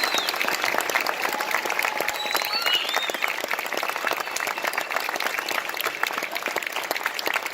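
Crowd applauding, a dense, steady clatter of many hands clapping.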